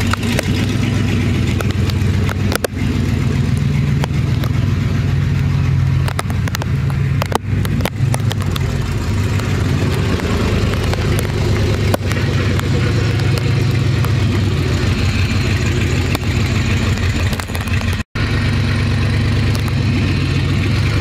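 2002 Chevrolet Silverado's 6.0-litre V8 running with no exhaust system fitted, so the engine is heard unmuffled and loud. The sound cuts out briefly near the end.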